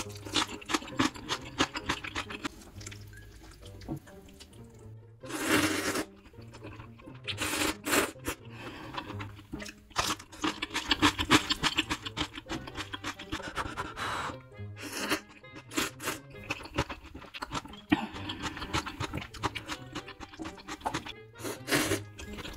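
Close-miked eating of spicy ramen noodles: several short loud slurps with dense wet chewing and crunching between them. Background music plays under it throughout.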